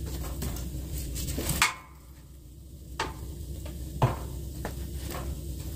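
Metal poker knocking against logs and the steel firebox of a wood stove while the fire is stirred up: a handful of sharp clanks a second or so apart, over a low steady rumble.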